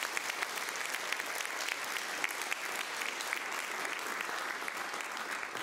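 Studio audience applauding steadily, a dense patter of many hands clapping that fades away near the end.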